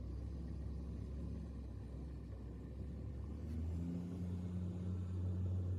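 Engine of a light flatbed truck running low and steady as it creeps through deep floodwater, its note stepping up to a higher, louder hum about two-thirds of the way through.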